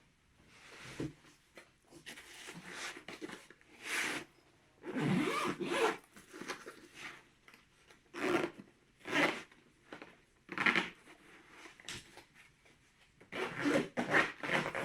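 Irregular scraping and rubbing as the cordless angle grinder kit's parts are handled and packed into their carry case, a dozen or so short rasping strokes with a cluster near the end.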